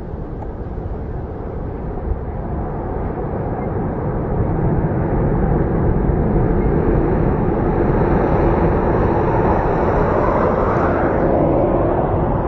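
Four-engine Airbus A380 jet engines running loud as the airliner rolls out on the runway after touchdown. The noise builds over the first few seconds and then holds steady, with a low hum and a faint high whine that stops near the end.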